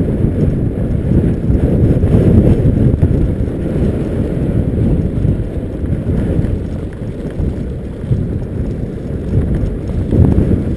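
Wind buffeting the microphone during a fast mountainboard ride, mixed with the rumble of the board's wheels rolling over a bumpy grass track. It is a loud, uneven low rumble throughout.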